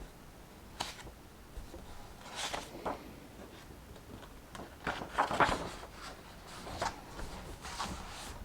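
Book pages and paper being turned and handled at a study desk: a handful of short paper rustles and soft knocks, the loudest cluster about halfway through.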